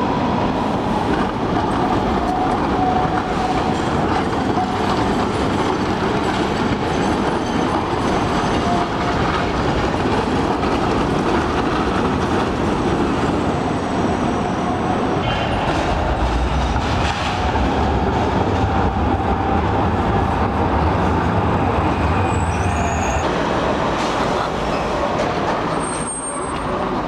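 City trams running on street track: a continuous rolling rumble and rail noise with a steady high whine running through it. The low rumble grows heavier in the second half, then the sound drops a little near the end.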